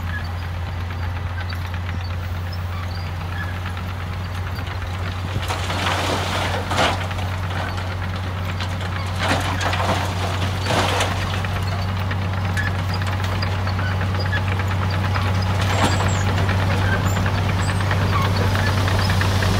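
Dump truck's diesel engine running steadily as its hydraulic tipper holds the bed raised, while rock and dirt slide and tumble out of the tipped body in several rushes, about six, ten and sixteen seconds in.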